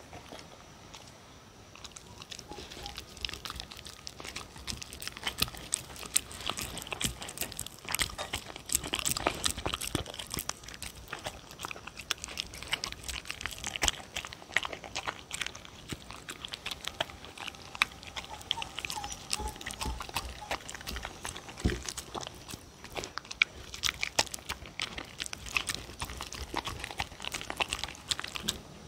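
Dog eating a soft mash of scrambled egg and sweet potato from a bowl right in front of the microphone: a steady, irregular run of wet chewing and smacking with clicks of teeth and tongue, starting about two seconds in.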